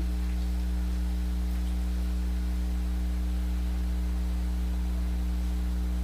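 Steady low electrical hum, made of several low tones under a faint hiss: mains hum in the recording.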